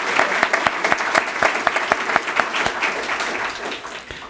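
Audience applauding, dense clapping from many hands that dies away near the end.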